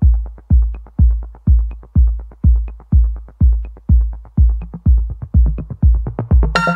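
Electronic dance music with a steady kick drum about two beats a second and light ticks between beats; a bright synth chord comes in right at the end.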